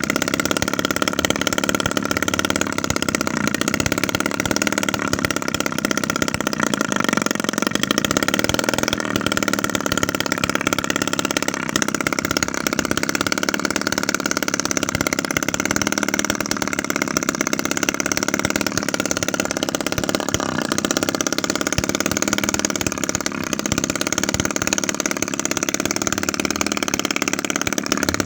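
Small homemade 7 cc two-stroke engine, built from a scrap refrigerator compressor with a 25 mm bore and 16 mm stroke, running steadily.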